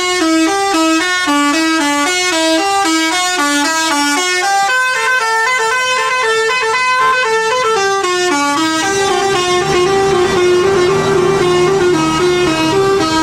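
Bus's Basuri musical horn playing a tune: a quick run of short stepped notes, changing to longer held notes about nine seconds in.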